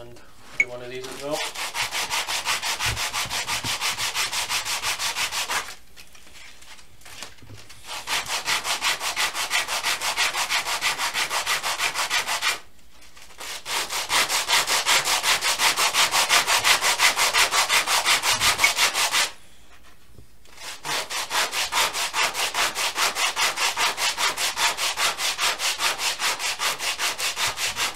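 Western red cedar blocks rubbed by hand on a sheet of sandpaper laid flat on a bench, sanding their edges: quick, even rasping strokes, several a second. The strokes come in four long runs with short pauses between.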